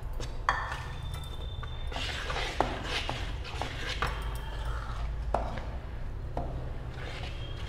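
A steel spoon stirring and scraping dry flour into a wet batter in a metal bowl, with several sharp clinks of the spoon against the bowl.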